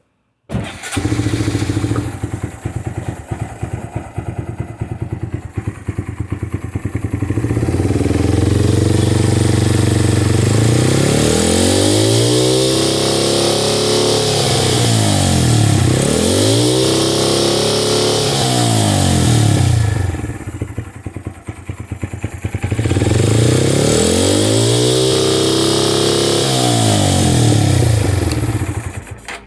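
A 2019 Honda Monkey's 125 cc single-cylinder engine starts about half a second in and idles unevenly. It is then revved up and down repeatedly in two runs of several blips. The noise up high that the owner attributes to an overly rich condition at high revs, because the ECU was tuned for no muffler baffles while one baffle is still in place.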